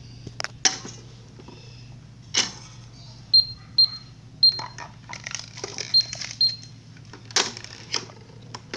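Toy electronic cash register beeping as its keys are pressed: five short high beeps about three to six seconds in. Sharp clicks and knocks of the plastic toys being handled fall around them.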